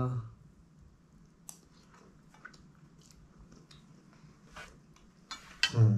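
A man chewing a mouthful of molokhia with rice: faint, scattered mouth clicks and wet chewing sounds. A short vocal sound comes from him near the end.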